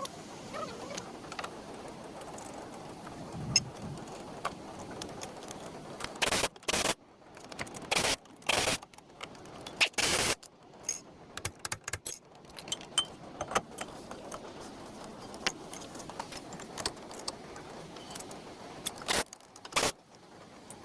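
Metal tools and parts clinking and knocking, with a cluster of sharper, louder knocks in the middle and two more near the end, over a steady background hiss.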